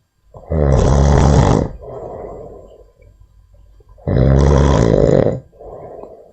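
A monkey snoring: two loud, low snores about three and a half seconds apart, each a little over a second long and followed by a quieter breath.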